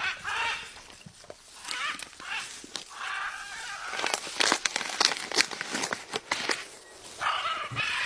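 A blue-and-yellow macaw squawking several times, harsh calls of under a second each. In the middle comes a run of sharp clicks and cracks as its beak works at a green coconut.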